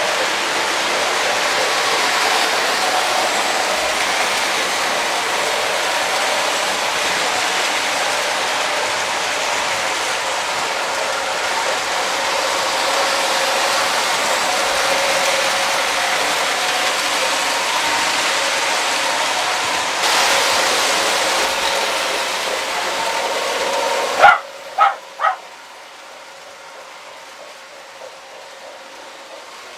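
Several Lionel O-gauge toy trains running on three-rail track: a steady rolling clatter with a hum and a motor whine. About 24 seconds in the sound drops off sharply. Three short, loud pitched calls come within a second, then a quieter rolling hum.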